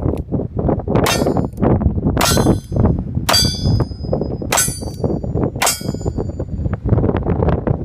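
Steel targets hit five times in quick succession, about a second apart, each strike followed by a metallic ring. The shots come from a cowboy action shooter's firearm, and strong wind buffets the microphone underneath throughout.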